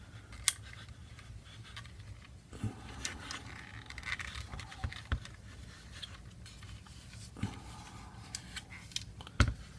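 Small parts of an airsoft gun's lower receiver being worked into place by hand: a part slipped under a tension spring and pushed in, with scattered light clicks and scraping.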